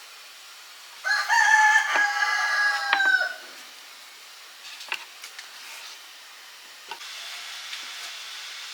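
A rooster crowing once, one long call of about two seconds that dips slightly in pitch at the end, with a few sharp clicks over it. A soft steady hiss comes in near the end.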